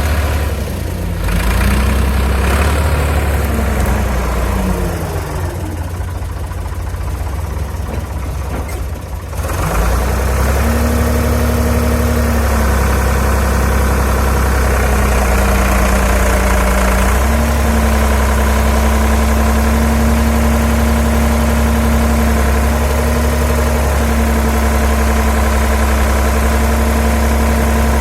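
Doosan DX35Z mini excavator's diesel engine running, with a whine that rises and falls in pitch as the hydraulics are worked. The sound drops quieter for a few seconds, then comes back up sharply about ten seconds in and runs steady.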